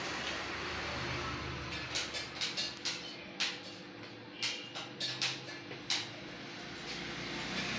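A dozen or so short, hissy slurping sips of hot milk tea from a small glass, coming irregularly in the middle seconds. A steady background hum runs underneath.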